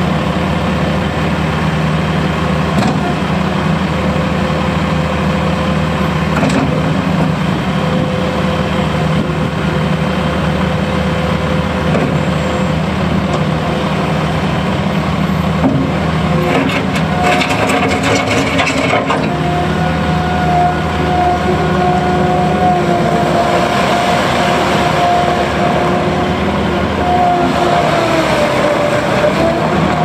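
A 2017 John Deere 312GR skid steer loader's 51 hp Yanmar diesel running steadily as the machine drives and turns. A little over halfway a steady high whine joins the engine, dipping in pitch near the end.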